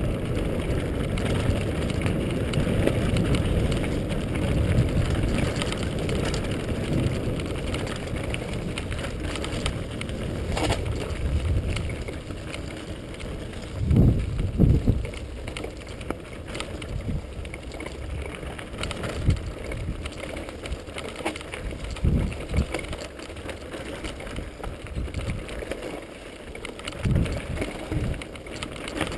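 Mountain bike riding fast over rough, gravelly forest singletrack, heard from a camera on the bike: wind rumbling on the microphone, tyres on gravel and the bike rattling. The rumble eases after the first third, with a few heavy knocks from bumps about halfway through and again near the end.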